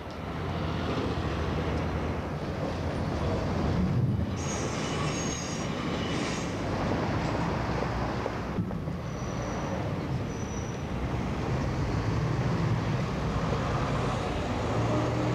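Steady low rumble of heavy city vehicles, with a few brief high squeals a few seconds in and again near the middle.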